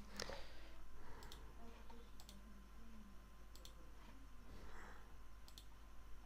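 Faint computer mouse clicks: a few short, sharp clicks, several in quick press-and-release pairs, spaced a second or more apart, over a low steady hum.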